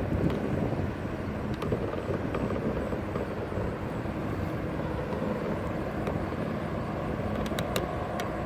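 Steady rumble of interstate traffic passing, with a few sharp clicks near the end.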